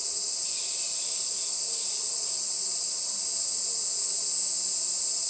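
Cicadas calling in a steady, high-pitched chorus.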